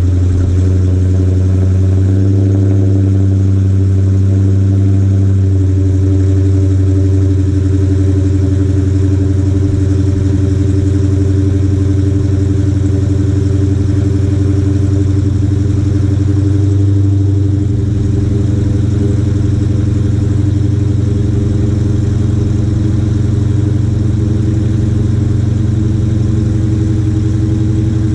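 2020 Dodge Challenger 392's 6.4-litre HEMI V8 idling steadily through its factory exhaust, a deep, even burble. About two-thirds of the way through, the idle note changes and settles slightly quieter.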